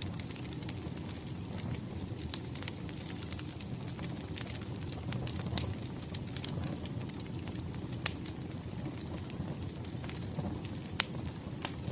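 Wood fire crackling, with scattered sharp pops over a low, steady rush of flames; the loudest pop comes about eight seconds in.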